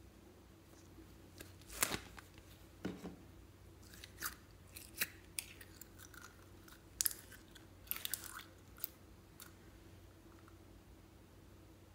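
Sticky crackles and clicks of clear bead-filled slime as it is squeezed and pulled out of a soft plastic pig-shaped container, with a duller knock of the plastic about three seconds in. The crackles come in irregular clusters and stop about nine seconds in.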